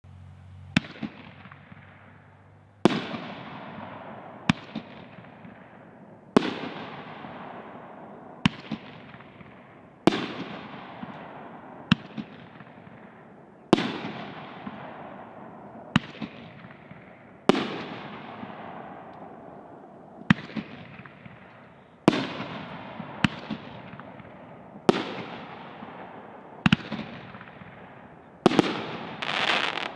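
Red Giant consumer fireworks cake (item 1403025) firing shot after shot: pairs of sharp bangs about two seconds apart, the second of each pair trailing off in a long fading hiss, about eight times over, with a denser volley near the end.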